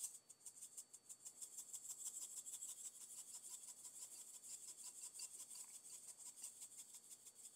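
Pepper grinder being twisted over food, a fast, even run of faint gritty clicks, several a second, as peppercorns are ground.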